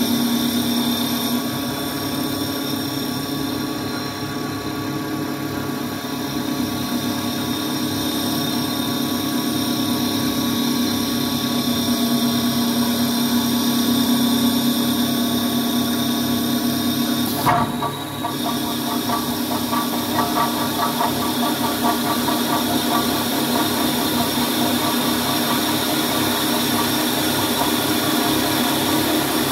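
CNC wood lathe running, a steady machine whine with several held tones. About two-thirds of the way through there is a short knock, and after it the sound turns rougher and more uneven.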